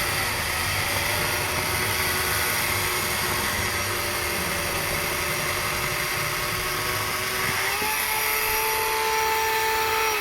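Echo 56-volt battery chainsaw cutting through a log: a steady electric-motor whine with chain noise. About eight seconds in, the pitch steps up and holds higher as the load comes off the chain.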